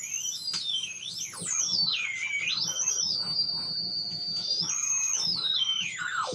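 Homebuilt FET AM radio tuner whistling loudly through its amplifier: a high whistle that glides up and down, holds one steady tone for about a second and a half in the middle, then sweeps down near the end. The whistle shifts as the tuner's supply voltage is adjusted, and it is the unwanted whistling that swamps any station.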